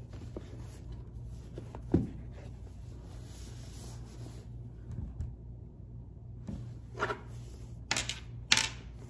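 Cardboard shoe box and shopping-bag packaging being handled: soft rubbing and rustling, with a knock about two seconds in and louder rustles near the end.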